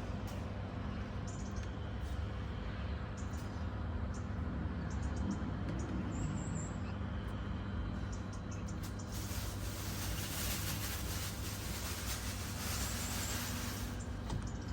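Handling noise from the plastic bin and cyclone of a Dyson V10 vacuum as dirt and dust are cleared out of them, with scattered light clicks and knocks. In the second half comes about five seconds of dense, scratchy rustling. A steady low hum runs underneath.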